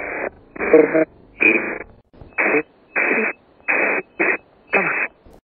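Spirit box sweeping radio stations: about eight short, choppy fragments of thin-sounding radio speech and noise with brief gaps between them, in which the investigator hears the words "sixty six yards".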